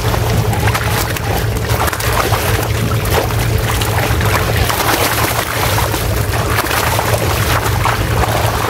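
Tilapia crowded in a seine net thrashing and splashing in shallow water, with the slosh of hands and plastic baskets scooping them out. A steady low motor hum runs underneath.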